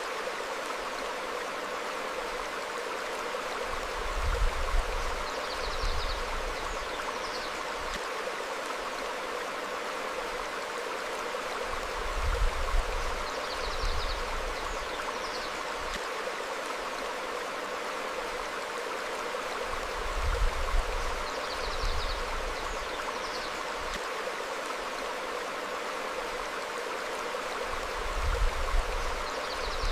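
Stream flowing over rocks, a steady rushing of water. Faint short high bird chirps come every few seconds, and a low rumbling swell rises about every eight seconds.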